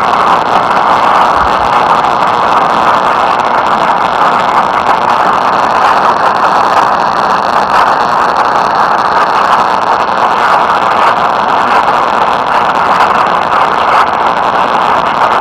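Steady radio static, a loud even hiss strongest in the middle range, with no tones or voice in it.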